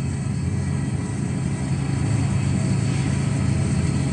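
Motorcycle engine running under load on a steep uphill climb through a tunnel, a steady low drone with no change in pace.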